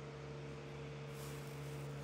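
A steady low electrical hum with a few overtones, with a brief hiss about a second in.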